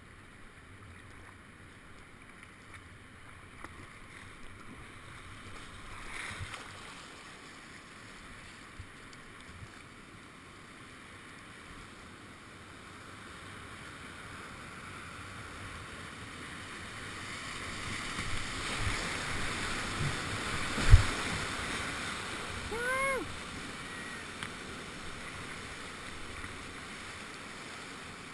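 Rushing whitewater of a big-water river rapid, heard from a kayak and growing louder as the boat runs into the waves. About three-quarters of the way through there is a sharp thump, the loudest sound, and a brief shout follows two seconds later.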